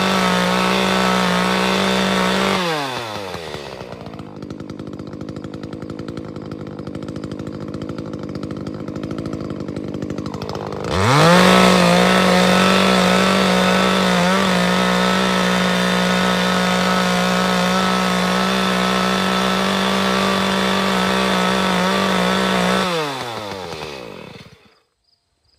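Gasoline chainsaw engine held at full throttle, dropping back to idle about three seconds in, revving up again near the middle and running at full throttle for about twelve seconds before winding down near the end.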